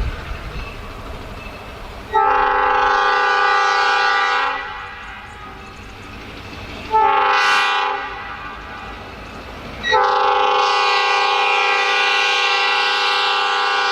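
Multi-tone air horn of an EMD GP38 locomotive blown for a grade crossing: a long blast, a short one, then another long blast held on. A low rumble from the approaching train runs beneath, loudest before the first blast.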